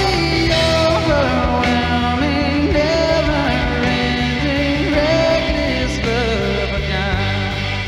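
Worship music in a rock style, a wavering sung melody over drums and bass with a steady beat.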